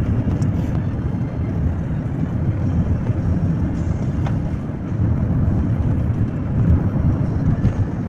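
Steady low rumble of road and engine noise heard inside a moving vehicle travelling at speed on an expressway.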